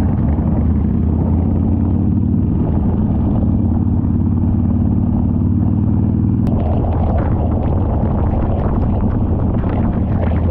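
Motorcycle engine running steadily at cruising speed, heard from the bike with road and wind noise. About six and a half seconds in there is a sharp click, after which the sound turns rougher and crackly.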